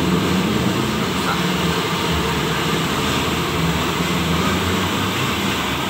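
Steady mechanical drone with an even hiss, the background noise of a motorcycle workshop, with no distinct events.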